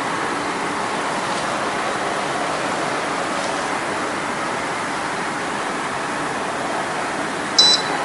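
Steady rushing background noise, with one short, high electronic beep near the end, typical of a digital foam density meter signalling a key press or reading.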